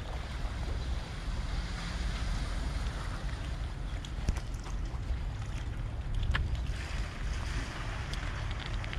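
Light wind rumbling on the microphone over gentle harbour water lapping against shoreline rocks, with a few faint ticks.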